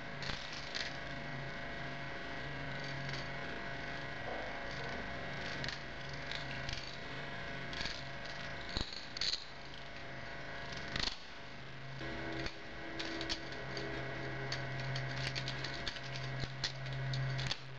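Balisong (butterfly knife) being flipped through a trick: scattered light clicks and clacks of the handles and blade, over a steady low hum.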